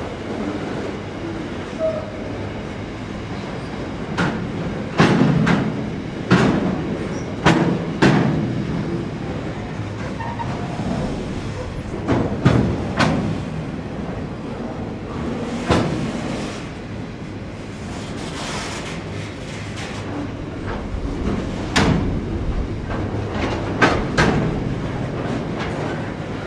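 Freight train of steel-coil wagons rolling on the rails: a steady low rumble with irregular loud knocks and clacks from the wheels over rail joints.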